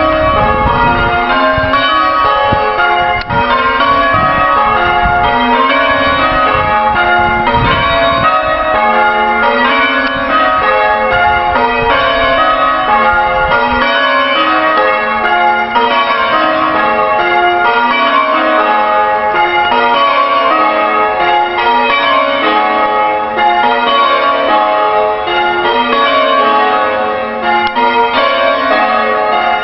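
Church bells ringing in a continuous, even sequence of strikes, calling worshippers to Sunday morning service. A low rumble sits under the bells during roughly the first half.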